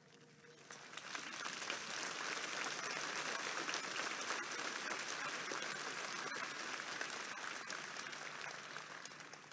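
A large crowd applauding, swelling up about a second in and dying away near the end.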